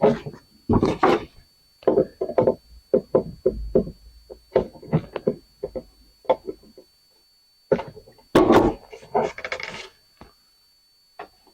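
Irregular clicks, knocks and clatter of hand-working the parts of an outdoor light fixture apart while removing its photocell, with a denser stretch of clattering a little past the middle.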